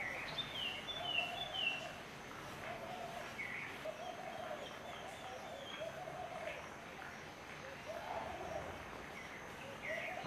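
Birds calling in the background: a low hooting note repeated roughly once a second, with a few higher, quick chirps in the first two seconds.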